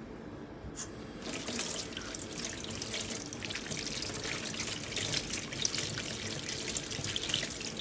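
Water running from a kitchen tap whose spout is wrapped in a cloth filter, splashing over an onion being rinsed by hand and into a stainless steel sink. The flow comes on about a second in.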